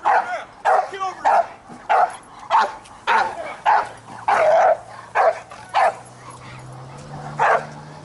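Dog barking in a rapid string, about two barks a second, with one longer drawn-out bark a little past the middle. A low steady hum comes in about halfway.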